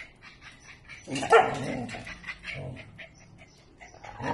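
Small dogs barking at play: one loud, drawn-out bark about a second in, followed by a few quieter yips.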